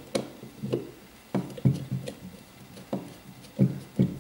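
Phillips screwdriver driving screws back down into the metal housing of an Endress+Hauser TMT142 temperature transmitter: irregular clicks and knocks, about two a second, as the screwdriver turns and is regripped.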